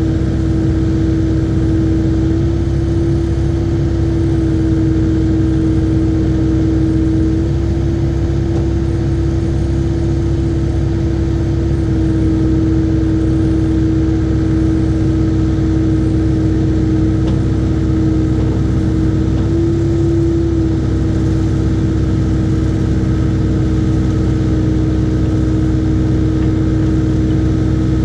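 IHI 80NX small excavator's diesel engine running steadily, with a constant whine over the engine note that shifts slightly in pitch now and then.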